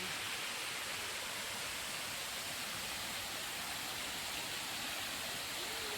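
Waterfall rushing: a steady, even roar of falling water close to the microphone.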